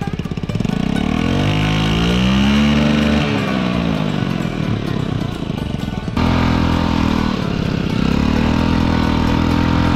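Honda Ruckus scooter engine, just restarted after wading through deep water, revved up and back down over a few seconds. About six seconds in, the sound changes suddenly to the engine running at a steady pitch as the scooter rides along.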